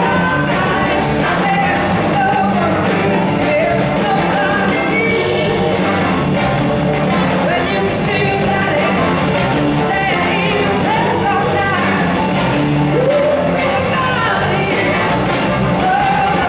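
Live blues-rock band with electric guitars, drums and a horn section of saxophone, trumpets and trombone, playing a song with a woman singing lead, heard from the audience in a large hall.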